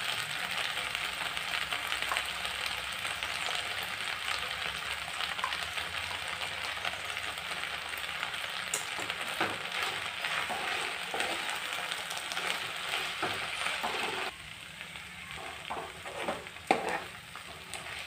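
Sliced ivy gourd and shallots sizzling in oil in a nonstick pan while a steel spoon stirs roasted ground coconut masala through them, scraping the pan. The sizzle drops sharply about 14 seconds in, and there are a few louder spoon scrapes and one knock near the end.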